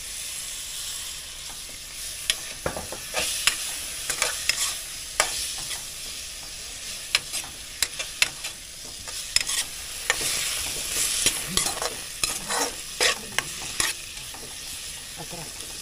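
Tomatoes sizzling in hot oil and spices in a non-stick wok, with a steady hiss. A spatula clicks and scrapes against the pan at uneven intervals as they are stirred.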